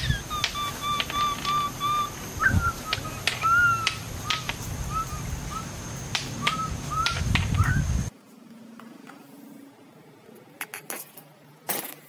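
Short high chirping calls, a quick even run of about seven in the first two seconds and then scattered ones, some rising, mixed with sharp clicks over a steady high whine. The sound cuts off suddenly about eight seconds in, leaving only a faint low hum and a few clicks.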